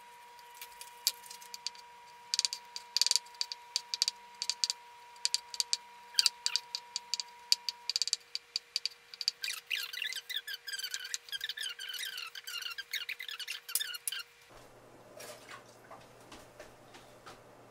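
Knife chopping cooked butternut squash on a plastic cutting board, played fast-forward: a quick run of sharp taps of the blade on the board, followed by several seconds of high-pitched, squeaky chatter. Near the end it drops to a quiet low hum.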